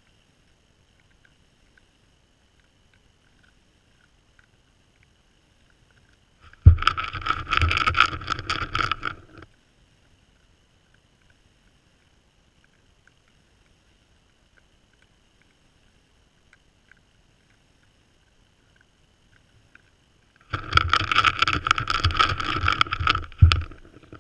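Two bouts of close rubbing and knocking, a few seconds each, as a white-tailed buck noses at the camera with its muzzle; near silence between them.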